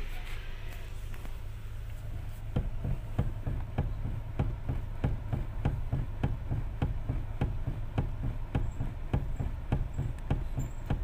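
Honda City steering rack knocking, about three clunks a second, as the steering wheel is rocked back and forth with the engine idling. The knock comes from a worn bushing inside the rack and pinion.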